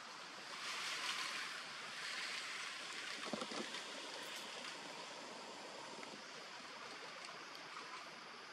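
Steady rushing outdoor background noise, with a few faint clicks about three and a half seconds in.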